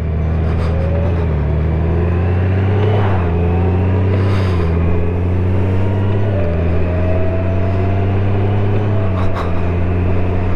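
Honda Gold Wing's flat-six engine running under way. Its pitch climbs and then steps down about four times, as with gear changes under acceleration, and a faint whine rises slowly throughout.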